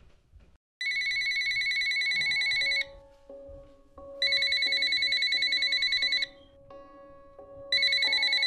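Telephone ringing with a fast warbling electronic trill: three rings of about two seconds each, the third starting near the end. A soft music score plays steady notes underneath.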